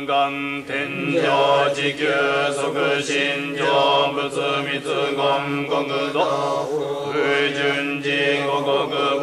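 A voice chanting Shingon Buddhist mantras in Japanese, in a continuous melodic recitation.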